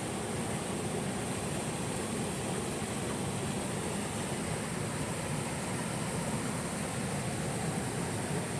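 Steady rush of water from a river and waterfall.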